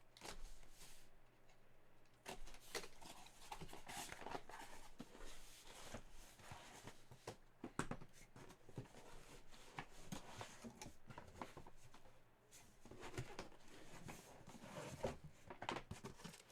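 Faint handling of a cardboard trading-card case and its packaging: rustling with scattered light clicks and knocks.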